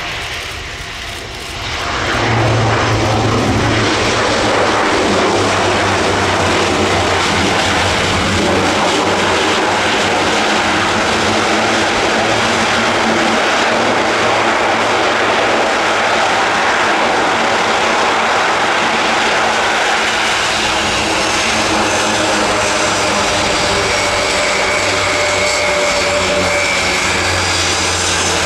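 Airbus A400M's four TP400 turboprop engines and eight-bladed propellers during the landing roll. The sound rises sharply about two seconds after touchdown and then holds loud and steady, typical of the propellers going into reverse pitch to brake. A faint whine comes in near the end.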